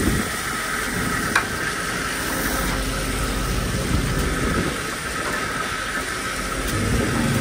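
Steady hissing rush of water and wind aboard a longline fishing boat, over the low drone of its engine, with one sharp click about a second and a half in.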